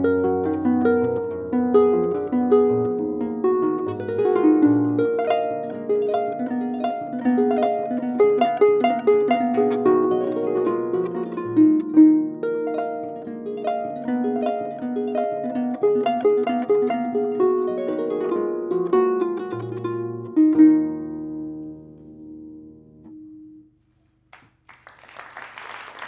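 Concert pedal harp playing a Baroque piece in quick, dense runs of plucked notes, ending on a final chord that rings and dies away. Applause starts near the end.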